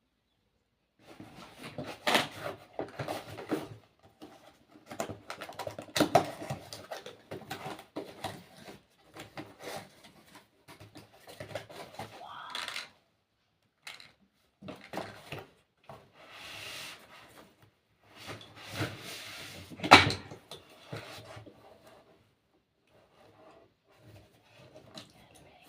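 Packaging and product containers being handled by hand: irregular rustling, clicks and knocks. Two sharper knocks stand out, about six seconds in and near twenty seconds.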